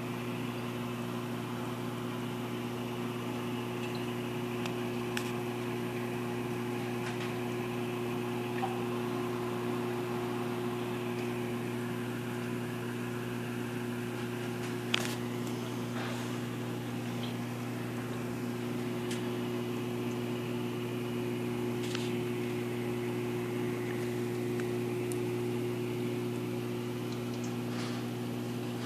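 Reef aquarium's running equipment (pumps) humming steadily, over a background hiss, with a few faint clicks, the sharpest about halfway through.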